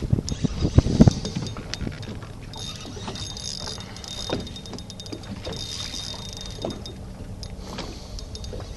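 Ambient noise aboard a small fishing boat on open water: a low rumble in the first second, then a quieter steady background with scattered light clicks and knocks.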